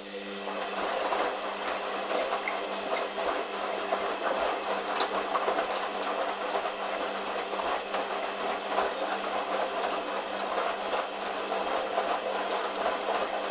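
Hoover washing machine running: a steady low hum under a dense rattling, hissing noise that swells up over the first second and then holds steady.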